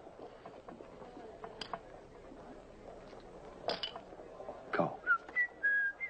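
A man whistling a few held notes of a tune, starting about five seconds in, over faint room noise with a few soft knocks.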